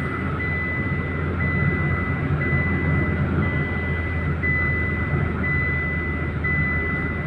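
Car cabin noise while driving at highway speed: a steady low drone of engine and tyres. Over it, a high electronic beep sounds for nearly a second and repeats about once a second.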